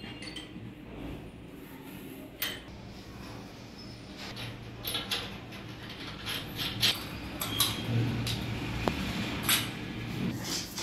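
Scattered clinks and taps of metal plumbing fittings being handled and test-fitted, the sharp knocks coming more often in the second half.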